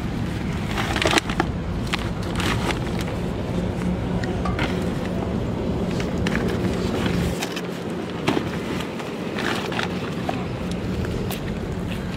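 Rustling and clattering of a plastic sack and plastic basin being handled, over a low rumble that eases about seven seconds in and a faint steady hum.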